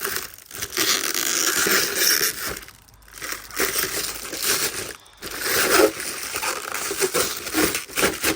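Plastic packaging crinkling and rustling as it is pulled off and unwrapped by hand, in bursts with brief pauses about three and five seconds in.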